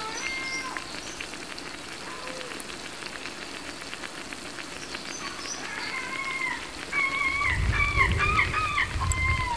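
Ripe banana fritters sizzling in hot oil in a frying pan: a steady fine crackle. In the last few seconds a warbling, whistled call repeats several times over a low rumble.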